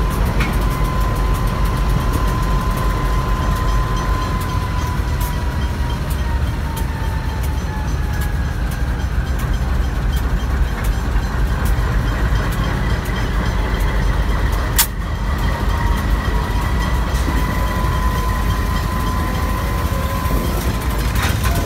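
Pacific National NR class diesel-electric locomotives (GE Cv40-9i) running as they move past, a deep steady engine rumble with a thin high whine that dips slightly in pitch and comes back. A single sharp click about fifteen seconds in.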